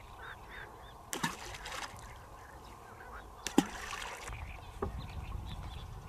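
Waterfowl calling at a lake: a few short, sharp calls, the loudest about three and a half seconds in, over faint chirping of smaller birds. A low rumble comes in during the second half.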